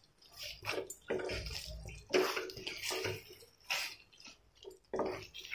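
Wooden spatula stirring drumstick pieces through thick, oily spice masala in a metal pan: irregular wet squelching and scraping strokes.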